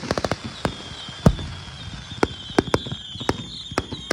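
Fireworks going off in a rapid, irregular string of sharp cracks and pops, with one louder bang about a second in. A thin high whistle sets in just before that bang and carries on.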